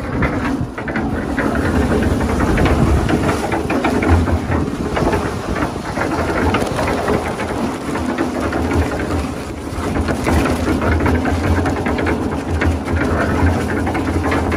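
Concrete mixer running, its drum turning with a steady low hum and a gritty hiss as bags of lime and cement are emptied into it for a brick-laying mortar mix.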